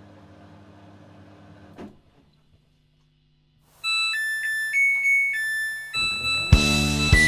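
Samsung washing machine's electronic beeper playing its melody in clear stepped tones, after a low machine hum that ends with a click and a short silence. Near the end a full music arrangement with bass and keyboard joins the tune.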